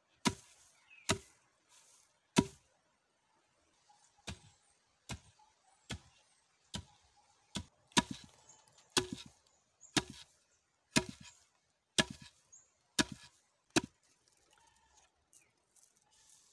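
Wooden pestle pounding sun-dried coffee beans in a wooden mortar to crack off their crisp dried skins: a run of sharp thuds, spaced out at first, then about two a second, stopping a couple of seconds before the end.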